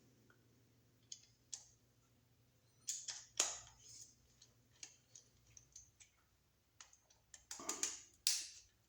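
Scattered small clicks and light scrapes of a screwdriver and hands on a new electrical receptacle as its unused terminal screws are turned down tight, with a few louder clicks about three seconds in and again near the end.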